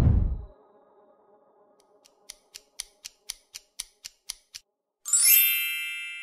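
Quiz sound effects: a short low whoosh for the paint-splash transition, then a countdown timer ticking about four times a second for two and a half seconds, then a bright chime that rings and slowly fades as the answer is revealed.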